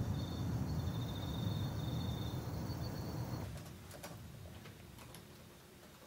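A low dull rumble that drops away about three and a half seconds in, leaving a few faint laptop keyboard clicks.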